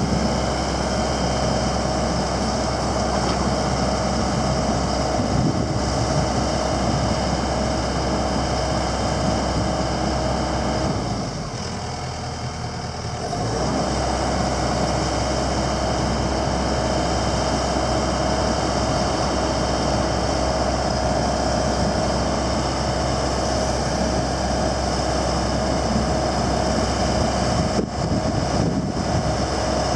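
Komatsu PC78 excavator's diesel engine running steadily under hydraulic work, with a steady whine over it. The sound drops briefly about eleven seconds in and comes back about two seconds later.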